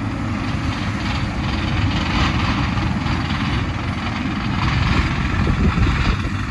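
Tractor engine running steadily, driving a bale processor that shreds and blows straw bedding, with a continuous low rumble and an even rushing noise above it.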